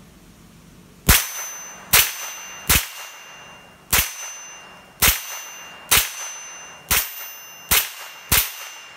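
Ruger 10/22 semi-automatic .22 LR rifle fired nine times at an uneven pace of about one shot a second. Each sharp crack is followed by a short ringing tail.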